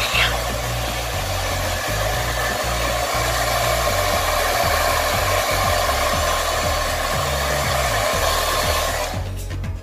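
Handheld hair dryer blowing steadily with a faint whine in it, switched off near the end.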